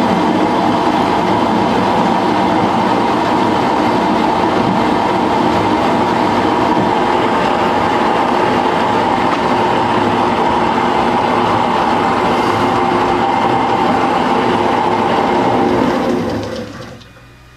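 Small manual metal lathe running at slow speed, power feed and half nut engaged, cutting a coarse tapered thread in mild steel bar. Its gears and cut make a steady mechanical whine that winds down and stops about 16 seconds in.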